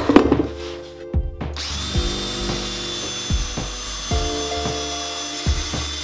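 Cordless drill running steadily, boring into the end grain of a plywood post. The whine starts about a second and a half in, after a few knocks, over background music.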